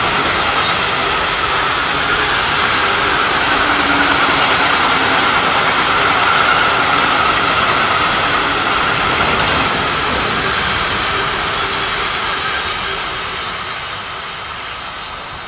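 Freight train of bulk hopper wagons rolling past: steady wheel-on-rail rolling noise with a high ringing hum, fading over the last few seconds as the end of the train pulls away.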